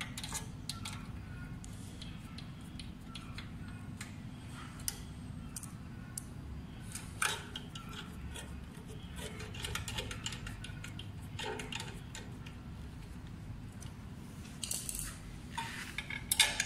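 Small metal screws and a hex key clinking and scraping against a scooter's rear frame and plastic fender during fitting. Scattered light clicks, with a few sharper knocks and a cluster of the loudest near the end, over a steady low hum.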